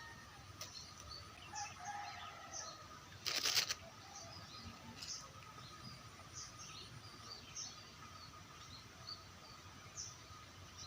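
Small birds chirping here and there over a faint steady outdoor background, with one brief loud noise about three and a half seconds in.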